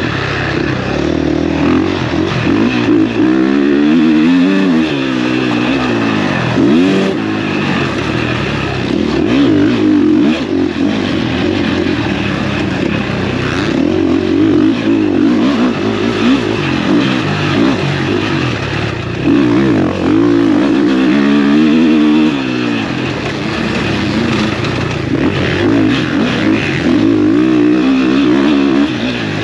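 Motocross bike engine on the track, revving up and falling back again and again as the rider accelerates, shifts and rolls off the throttle.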